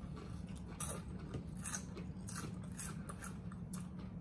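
Doritos tortilla chips being chewed: a run of irregular crisp crunches.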